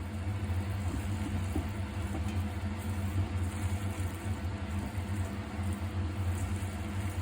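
Steady low mechanical hum, unbroken and even.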